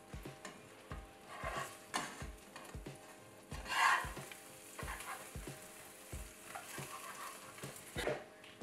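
Beaten egg sizzling in a non-stick frying pan, with a spatula scraping across the pan as the egg-coated bread is turned; the loudest scrape comes about four seconds in.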